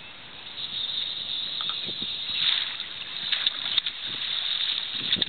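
Water splashing and churning as a hooked steelhead is brought into a landing net beside the boat, picking up about half a second in, with a few sharp knocks later on.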